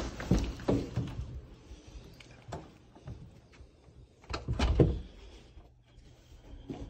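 A door being opened and closed: scattered knocks and clicks, with the loudest clatter about four and a half seconds in.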